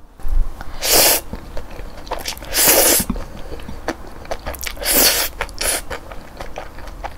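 A person slurping instant jjajang ramen noodles off chopsticks, four hissing slurps, the second the longest, with wet chewing between them.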